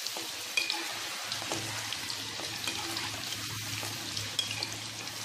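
Mutton koftas deep-frying in hot oil: a steady sizzle scattered with small pops and crackles. A faint low hum comes in about a second in.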